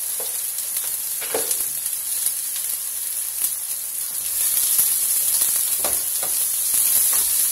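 Chicken and sun-dried tomatoes frying in a pan: a steady sizzle that grows louder about four seconds in, with a few light knocks.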